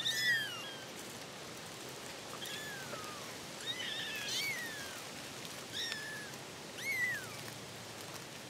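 Young kittens mewing: a string of about five or six short, high-pitched mews, each falling in pitch, one every second or so.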